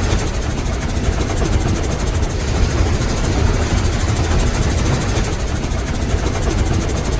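Steam locomotive exhaust chuffing in a fast, even rhythm of airy, hissing chugs over a low rumble, running steadily at speed.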